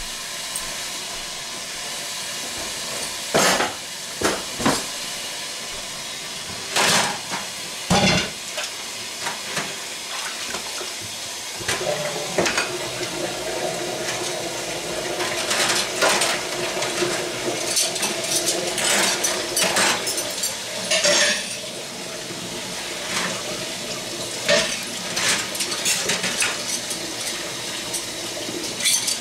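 Tap water running into a stainless steel kitchen sink, with sharp knocks and clatter of dishes and utensils against the steel while the sink is cleaned. About twelve seconds in, the water sound grows fuller and louder.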